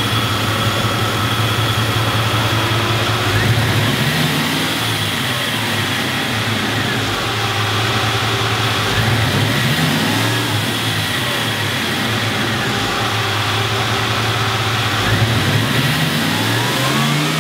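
Chevrolet C10 pickup's engine running at idle and revved up in short blips several times, each rev rising and falling back to a steady idle.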